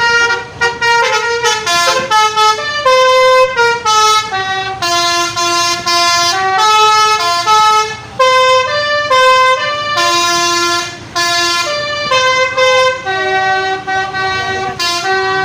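Telolet basuri bus horn playing a quick melody: a string of bright, buzzy horn notes stepping up and down in pitch, each held a fraction of a second, with short breaks between phrases.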